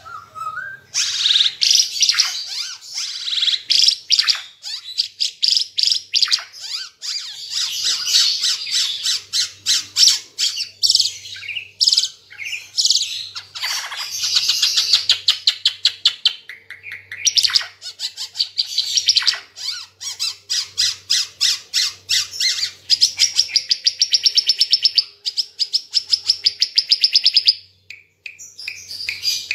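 Ara Timor (red-eyed) songbird singing loudly and continuously: fast trills of rapidly repeated high notes mixed with chattering phrases, breaking off briefly near the end.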